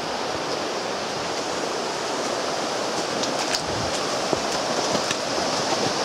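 Steady rushing of a river flowing beside the trail, with a few faint clicks about halfway through.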